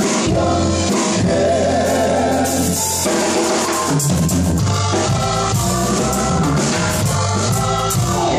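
Live band music in a funky style: electric keyboard and drum kit playing, with singing over them.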